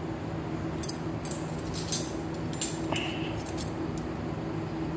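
Light metallic clicks and scrapes of a steel knife blade and a steel ruler being handled against each other, with one short high ring about three seconds in.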